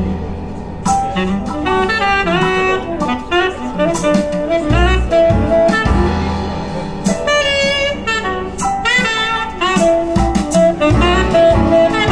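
A recorded song's instrumental break, a lead melody over bass and a steady beat, played through Tannoy Sterling III LZ Special Edition loudspeakers driven by a Unison Research Simply 845 valve amplifier.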